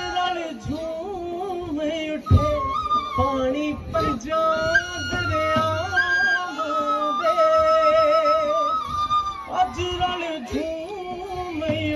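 Punjabi folk music for jhoomar dance: a singer holds a long, wavering, ornamented melody over dhol beats.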